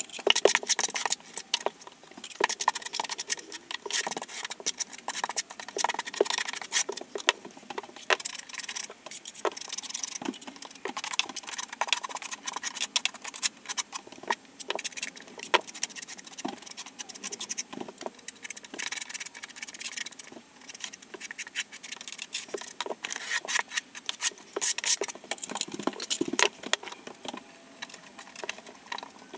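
A steel V-notched trowel scraping and combing thinset mortar onto a backsplash wall: a dense, continuous rasping with many quick clicks of the blade.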